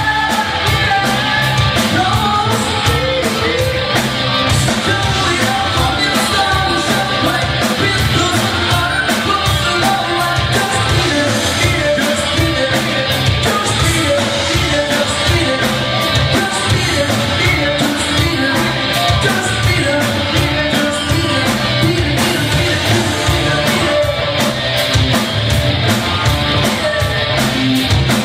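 Live rock band playing loud: electric guitars, bass and drums, with a singer's voice over them and steady drum hits throughout.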